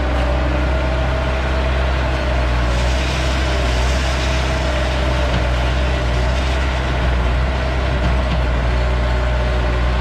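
Bobcat skid-steer loader's diesel engine running steadily at working speed, a loud low hum with a steady whine over it while the raised bucket is held tipped over a truck's salt spreader.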